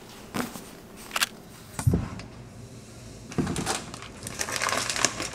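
Scattered household handling noises: a few sharp knocks and a low thump in the first two seconds, then a stretch of light clicking and clatter.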